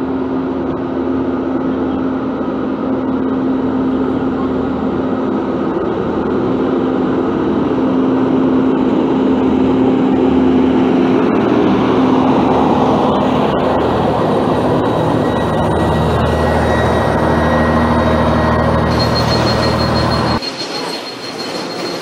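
Dennis Condor double-decker bus's diesel engine running as the bus approaches and passes close, with a steady whine over the engine rumble. The sound drops suddenly near the end.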